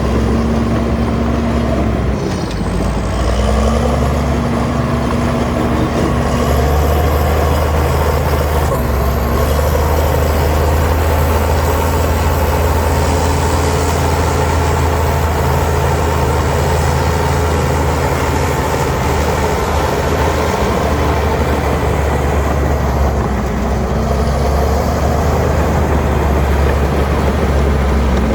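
Heavy diesel engine of earthmoving machinery running steadily and loud, its pitch dipping briefly a couple of seconds in.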